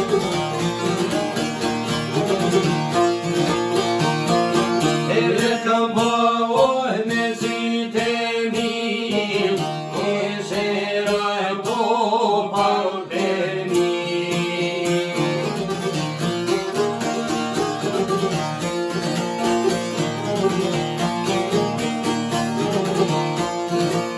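Albanian folk music: a long-necked sharki and a smaller lute plucked and strummed together in a steady rhythm, with men's voices singing a couple of phrases near the middle.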